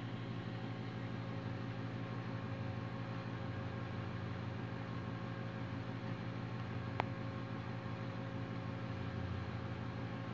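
Steady electrical hum from a toroidal transformer and rectifier rig under a heavy charging load of about 50 amps into a 12,000-farad supercapacitor bank. The hum is made of many evenly spaced tones over a faint fan-like hiss, with one faint click about seven seconds in.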